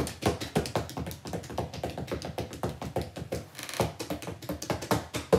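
Rapid, uneven tapping, several taps a second, ending in one louder hit that cuts off sharply.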